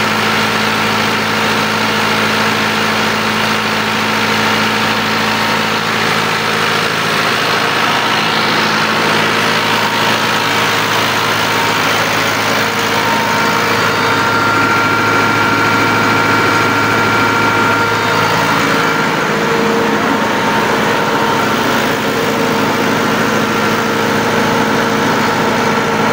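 Freshly overhauled tractor diesel engine running steadily during a load test. About 19 seconds in, its low tone shifts slightly, as the engine speed or load changes.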